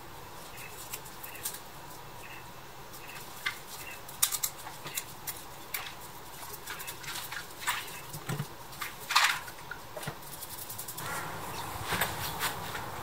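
Irregular light clicks, taps and scrapes as a rusty pressed-steel toy tractor body is turned over in gloved hands. The loudest knocks come about four and nine seconds in.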